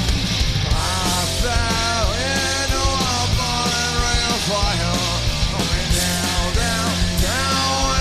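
Live punk rock band playing loud and steady through an instrumental break, with drums and bass under a lead melody that bends and slides in pitch from about a second in.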